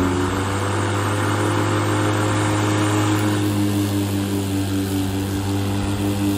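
Ryobi 20-inch 13-amp corded electric push mower running steadily at full speed: an even motor hum with the whir of the spinning blade.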